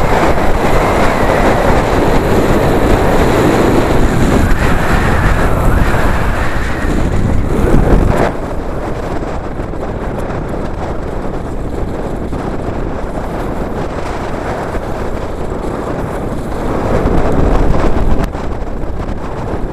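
Wind rushing over a bicycle helmet camera's microphone on a moving road bike, mixed with tyre noise on the road. Loud for the first eight seconds, then it drops suddenly to a lower, steadier rush, and swells again near the end.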